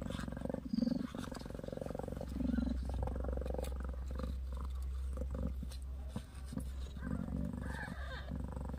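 Mother cat purring steadily and close up while tending her newborn kitten, the purr swelling louder a few times.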